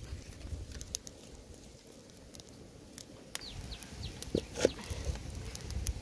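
Open wood fire of dry twigs crackling with scattered sharp pops over a low rumble. About three and a half seconds in, a bird chirps a few short falling notes, and a couple of knocks with a slight ring follow near the end.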